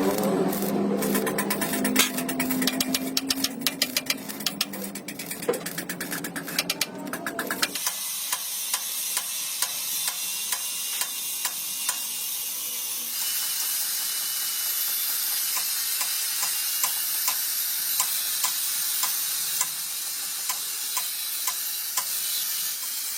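Arc welding on a steel truck chassis frame: a dense, irregular crackle and sizzle over a low electrical hum. About eight seconds in it changes to a steadier high hiss with faint, regular ticks.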